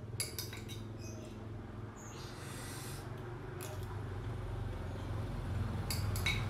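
A person eating close to the microphone: chewing, with a metal spoon clicking against the plate near the start and again near the end, over a steady low hum.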